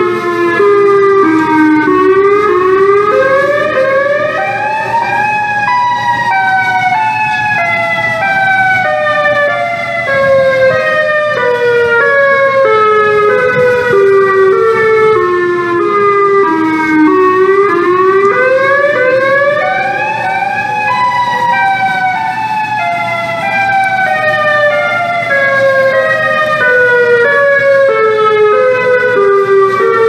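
Outdoor tornado warning sirens sounding, several pitches at once that slowly sink and twice climb again, a few seconds in and just past the middle.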